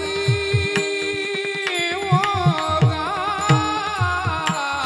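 Marathi devotional kirtan singing: a man's voice holds long, wavering sung notes over small brass hand cymbals (taal) ringing in time, with low drum strokes keeping the beat underneath.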